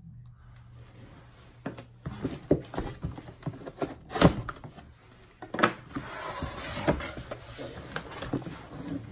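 Cardboard shipping box being pulled open by hand: flaps bent back and cardboard scraping and rustling, with several sharp knocks as the box is handled.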